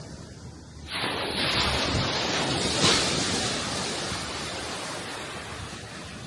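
A sea wave breaks about a second in, its surf hiss swelling to a peak and then slowly fading as the water washes back. A low steady rumble of wind lies underneath.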